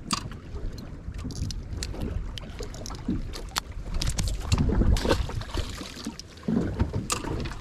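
Wind buffeting the microphone on a small open boat, with scattered sharp clicks and knocks as a small fish is unhooked with metal fishing pliers and tossed back, landing with a small splash about six seconds in.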